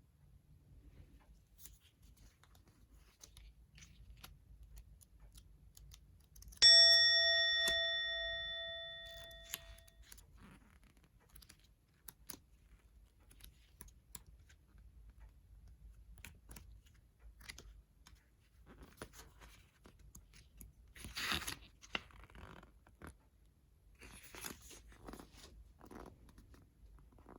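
Faint clicks and rustling of packaging being handled, with two short louder rustles near the end. About a third of the way in comes one bright ding with several ringing tones that fades away over about three seconds.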